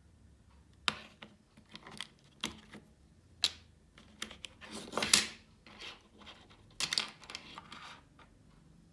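Keys with Gateron mechanical switches being typed: irregular sharp keystroke clicks, with quick runs of strokes around the middle and again near the end.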